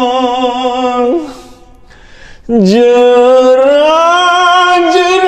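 A man singing long held notes through a K6L wireless karaoke microphone. One note breaks off about a second in, and after a short pause a second long note slowly rises in pitch.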